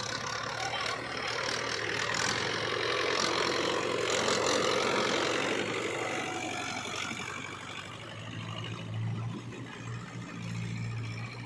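Heavy diesel machine engine running under a low steady hum, growing louder with a rushing noise that peaks about four to five seconds in, then easing back to a steadier, lower hum in the last few seconds.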